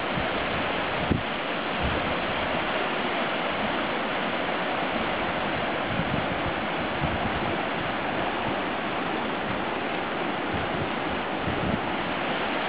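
River whitewater rushing steadily as it pours over a drop, with a few faint low thumps.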